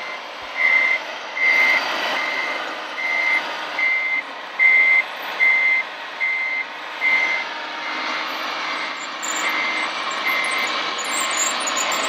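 Reversing beeper on a radio-controlled Mercedes-Benz Arocs tipper truck, played through its sound module: a steady single-pitch beep a little more than once a second, loud at first and fainter after about seven seconds, over a steady truck-engine hum.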